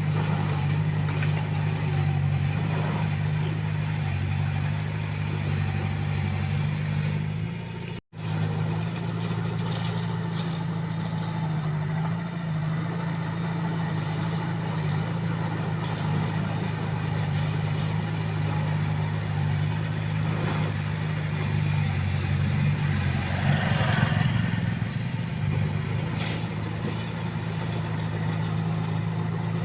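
Komatsu D21A small bulldozer's diesel engine running steadily while it works. The sound drops out for an instant about eight seconds in, and a louder, rougher burst of noise rises over the engine a few seconds before the end.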